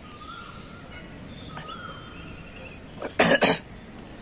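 Birds calling outdoors, with two loud harsh caws close together about three seconds in, over fainter calls earlier on.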